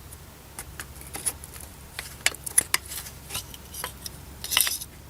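A hand tool prying a part on the engine: a series of irregular sharp clicks and taps, with a short scraping rattle about four and a half seconds in.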